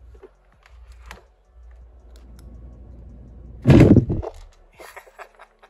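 Clicks of wiring and switches, then the Tesla Cyberquad's electric drivetrain running briefly for the first time on a generic brushed 36V e-bike controller, with a low hum and a loud burst about three and a half seconds in.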